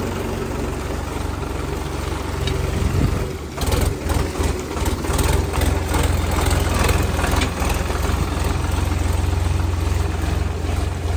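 Sonalika Mileage Master 39 tractor's diesel engine running with a steady low hum. From about three and a half seconds in, the sound turns uneven, with surges and many short noises, as the tractor drives through deep mud.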